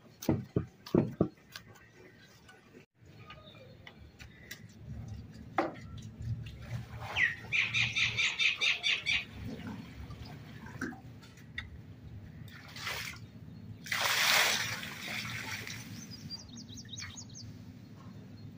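A few knocks as dough is kneaded in a steel bowl. Then birds chirping in a quick run of repeated notes about seven seconds in and again briefly near the end. Water pours and splashes from a bucket onto a garden bed, loudest about fourteen seconds in.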